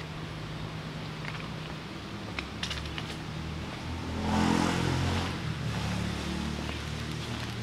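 A motor engine running steadily, growing louder for a second or so about four seconds in, with a few light clicks earlier on.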